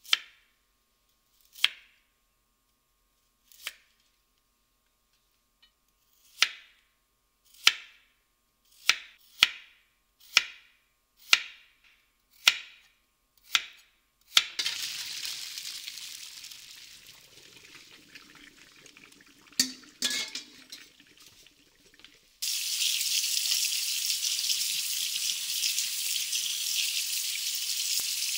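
A kitchen knife slices radishes and carrots on a wooden cutting board: about a dozen single sharp chops, a second or so apart. Then a hiss sets in and slowly fades. Later a tap is turned on suddenly, and water runs steadily into a metal colander as soba noodles are rinsed by hand.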